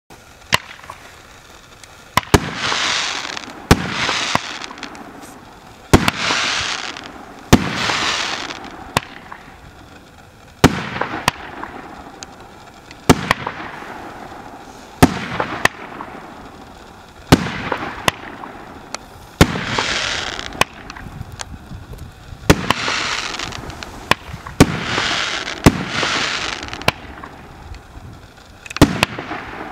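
Firework battery (JFC 40-24/01 'Valkyrie' cake) firing shot after shot. There is a sharp bang every second or two, and most bangs are followed by about a second of crackling as the stars break.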